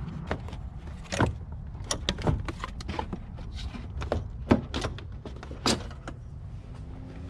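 Irregular sharp clicks and knocks of tools and plastic and metal intake parts being handled in a car's engine bay during removal of the stock air intake, over a low steady background noise.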